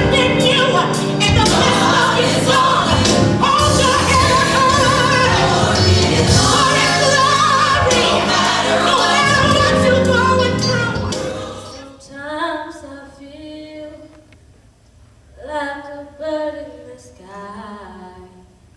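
Gospel-style music with choir singing over a full accompaniment for about eleven seconds, then fading out. A solo woman's voice follows, singing short unaccompanied phrases.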